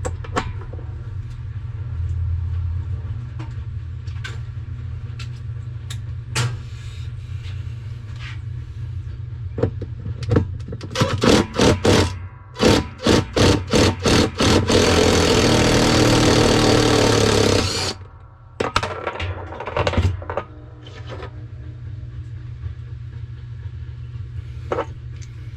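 Handheld power driver fitted with a 7/16-inch socket working a bolt on a Whirlpool washer: a run of quick clicks, then several short trigger bursts, then about three seconds of steady running that cuts off suddenly. A few clicks follow, over a steady low hum.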